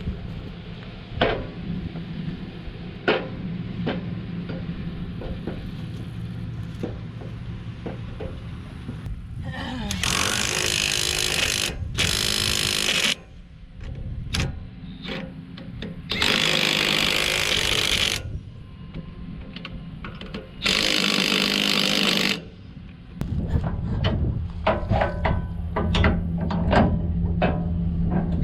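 Impact wrench run in four bursts of one to two seconds each as a trailer wheel is fitted back on, over a steady low hum, with metal clinks and taps between and a quick run of clinks near the end.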